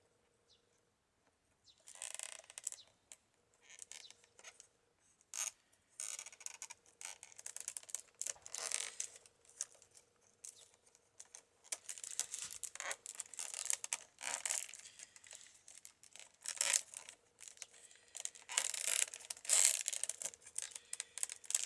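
Basket-weaving strips scraping and rustling against the basket's stakes as they are worked through the weave, in irregular strokes that start about two seconds in.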